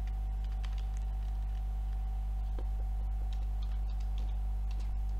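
Scattered light computer-keyboard keystrokes while code is being typed, over a steady low electrical hum with a thin steady tone.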